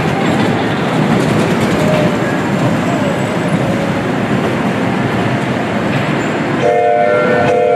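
Small kiddie ride train running around its track, a steady rolling noise. About seven seconds in, the ride's train whistle sounds, a chord of steady tones in short repeated toots.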